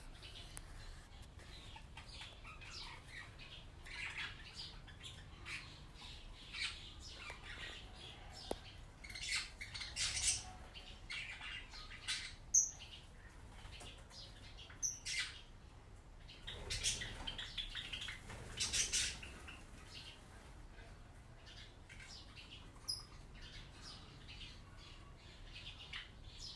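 Birds chirping and calling in short, irregular bursts, with louder flurries about ten seconds in and again around seventeen to nineteen seconds.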